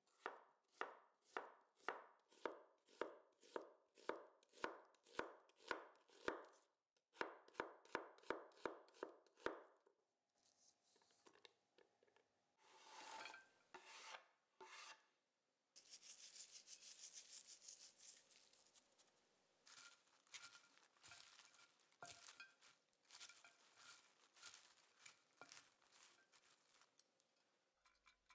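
Santoku knife slicing a red onion on a wooden cutting board, about two cuts a second with a brief pause about seven seconds in. After that the slices are scraped off the board into a bowl of cabbage, followed by rustling and light clicks as onion and cabbage are mixed.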